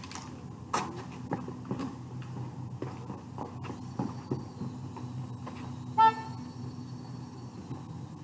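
A single short, loud horn-like beep about six seconds in, over a steady low hum and scattered light clicks and taps.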